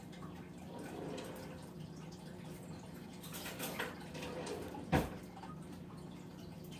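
Faint clinks and handling noises while a spoon is fetched, with one sharp knock about five seconds in, over a steady low hum.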